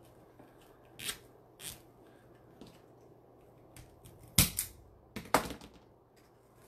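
A few sharp plastic clicks and snaps from zip ties being pulled tight on a wire flower board, the loudest about four and a half seconds in and another about a second later.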